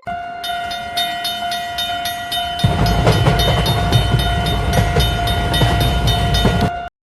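Railroad crossing sound effects: a steady held tone with a light repeating ding about three times a second. About a third of the way in, a train's low rumble and wheel clatter join it, and everything cuts off abruptly near the end.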